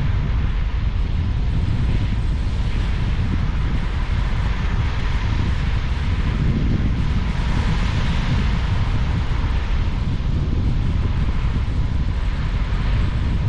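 Wind buffeting the microphone: a loud, steady low rumble with a fainter hiss above it.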